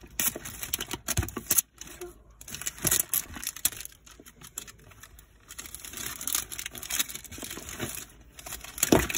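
Wrapping of a large surprise egg being crinkled and torn open by hand, in irregular crackling bursts, with a louder knock near the end.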